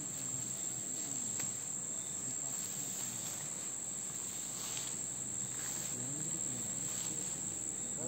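Steady, unbroken high-pitched insect chorus, a continuous trill from crickets or similar insects in the bamboo grove.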